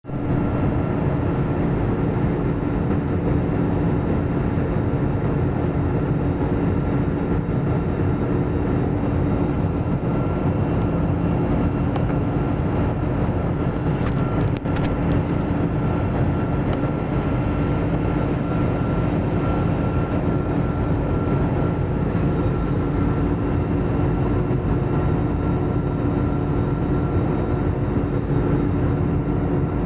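Cabin noise of an Airbus A320-family jet airliner in flight: the steady drone of the engines and rushing air, with a constant hum and a fainter high whine running through it.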